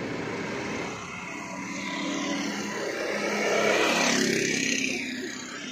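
Go-kart engine running on a track, growing louder to a peak about four seconds in, then fading.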